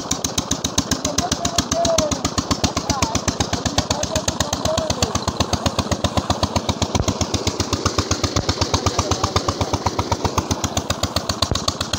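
16 hp KAM 'Peter' single-cylinder diesel engine running steadily under load with an even exhaust beat of about eight strokes a second, driving an irrigation water pump.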